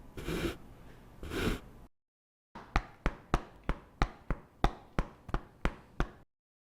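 Hand-made Foley sounds: two breathy sighs, then after a short gap a run of about eleven sharp, light taps, roughly three a second, that stop suddenly near the end.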